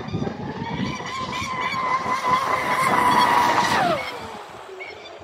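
RC speedboat's 1650 kV TP 4090 brushless motor whining at high speed, over the rush of the hull and its spray. The whine climbs about a second in, holds, then drops steeply in pitch near four seconds and fades.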